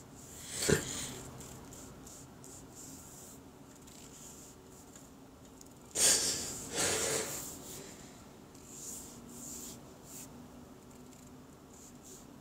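A man crying: two loud sniffling, sobbing breaths, a short one about a second in and a longer one about six seconds in, with softer breaths between.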